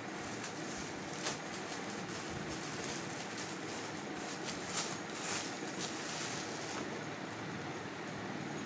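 Clear plastic polybag crinkling and rustling as a folded top is pulled out of it and shaken open, in short crackly bursts that die away near the end, over a steady background hiss.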